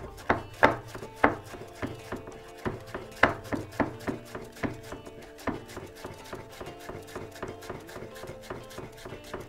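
Chef's knife finely dicing a shallot on a wooden cutting board: a run of quick taps of the blade through the shallot onto the wood, sharper strokes about every half second at first, then lighter, faster taps in the second half.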